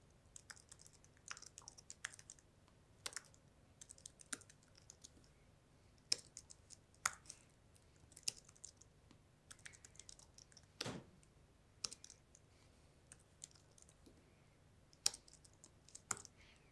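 Faint typing on a slim computer keyboard: irregular runs of key clicks with short pauses between them, with one somewhat heavier keystroke about two-thirds of the way through.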